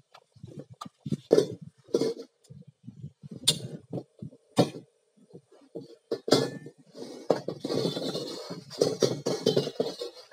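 Carbon steel wok clinking and scraping in irregular strokes as it is handled, metal knocking and rubbing.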